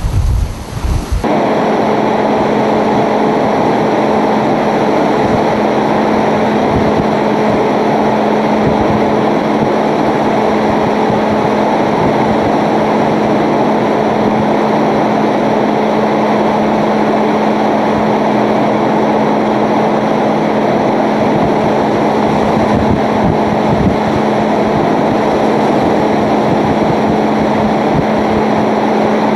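Hurricane-force wind and wind-driven rain rushing steadily through a building's entryway, with a steady low hum underneath. For the first second, heavy wind buffeting on the microphone rumbles, then cuts off abruptly.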